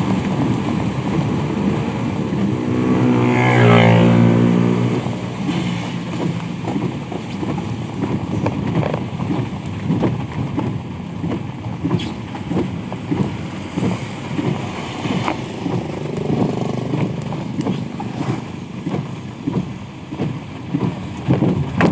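Road traffic on a wet road in the rain. A motor vehicle passes close about four seconds in, and its engine note is loudest then. Steady road and rain noise runs underneath.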